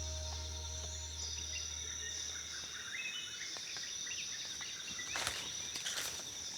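Tropical forest insects buzzing steadily in two high tones, one of them pulsing, with short chirping calls over them. About five seconds in, crackling and snapping in dry leaf litter begins, like footsteps moving through the undergrowth.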